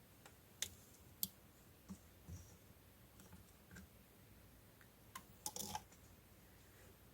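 Clear slime being handled, making faint sticky clicks and small pops: two sharp ones about half a second and a second in, a few soft ones after, and a short run of squishy clicks near the end.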